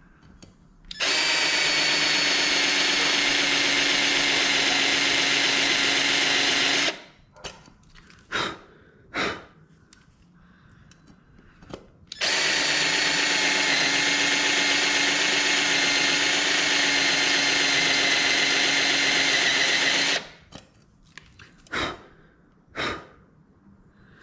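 Cordless drill turning a spot-weld drill bit into the tack weld on the exhaust baffle's retaining bolt, cutting the weld so the baffle can come out. It runs steadily twice, for about six seconds and then about eight, with a few short blips in between and near the end.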